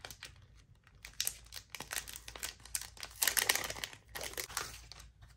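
Thin clear plastic sticker sleeve crinkling and rustling in the hands as it is opened and the die-cut stickers are pulled out, in irregular crackles that are loudest about three seconds in.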